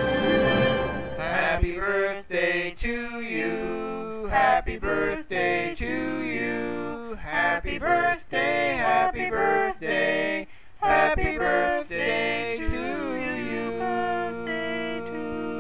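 Male voices singing a cappella in close harmony, a birthday song, ending on a long held chord. The first second holds the tail of an orchestral fanfare.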